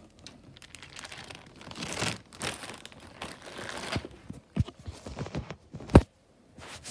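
Plastic zip-top bag of Lego pieces crinkling as it is handled and packed into a backpack, with a few knocks and a sharp thump about six seconds in.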